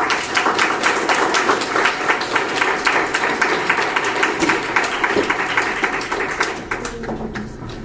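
Audience applauding, starting all at once and dying away about seven seconds in.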